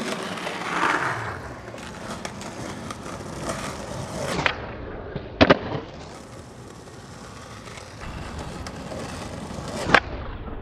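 Skateboard wheels rolling on asphalt, with three sharp clacks of the board hitting the pavement as tricks are popped and landed: one about four and a half seconds in, a louder one a second later, and one near the end.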